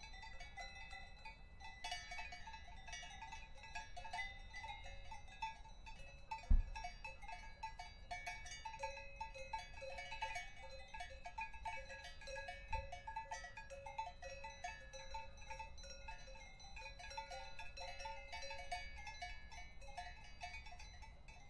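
Many cowbells clanking and ringing irregularly, their strikes overlapping without any rhythm. About six and a half seconds in there is a single low thump, the loudest sound, and a smaller one follows near thirteen seconds.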